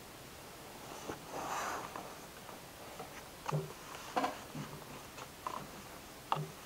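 A paperback book being handled: a soft paper rustle as a page is turned, then a handful of short, quiet clicks and taps from the book and a pen.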